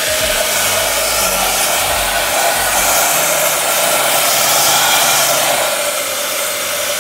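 Bar glass chiller blasting cold compressed gas into an upturned glass to frost it: a loud, steady hiss.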